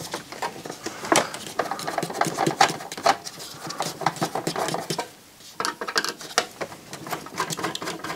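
Screwdriver working screws out of a CD player's sheet-metal rear panel: a run of quick small clicks and scrapes of metal on metal, pausing briefly about five seconds in.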